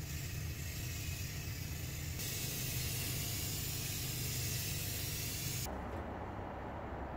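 Electrostatic powder-coating gun spraying a steady hiss of air and powder, getting louder about two seconds in and cutting off sharply about a second and a half before the end. A steady low hum runs underneath.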